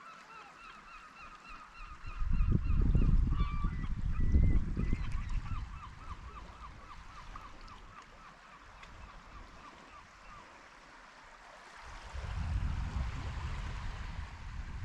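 A gull calling in a long, quick series of repeated short notes, several a second, speeding up and fading out over the first half. Wind rumbles on the microphone in gusts, once a couple of seconds in and again near the end.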